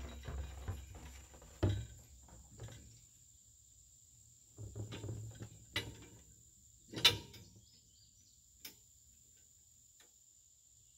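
Irregular hollow knocks and bumps of an empty plastic barrel shifting against the steel tumbler frame, with a cluster of bumps about five seconds in and the loudest sharp knock about seven seconds in. The barrel sits loose in its cradle, not yet padded.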